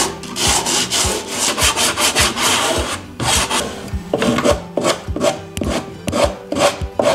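Hand-sanding a wooden cajon box's edge with sandpaper on a block: quick back-and-forth rasping strokes, with a short pause about three seconds in, rounding over the sharp corner.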